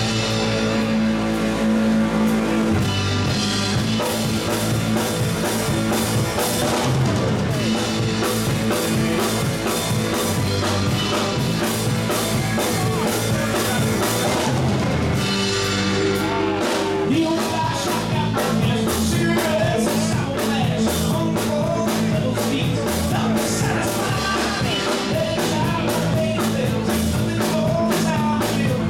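Live rock band playing: two electric guitars, bass guitar and drum kit through amplifiers.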